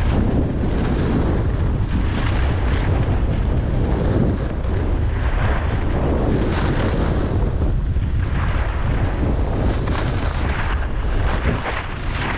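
Wind buffeting the camera microphone while skiing downhill, with a steady low rumble. A hiss of skis sliding on snow swells and fades with each turn.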